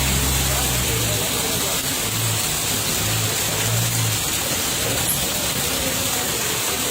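Steady rushing noise of water, with a low hum that swells a few times in the first half.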